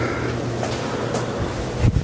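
Craftmade Max Air 29-inch ceiling fan running: a steady rush of moving air over a low hum, with a single thump near the end.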